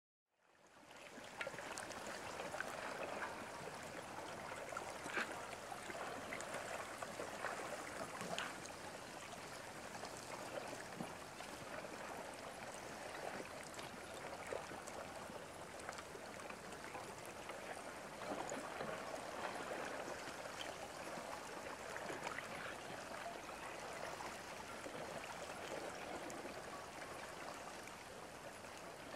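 Broken ice floes and slush shifting on the water at the shore: a steady trickling, crackling hiss scattered with many small clicks and tinkles. It fades in over the first second.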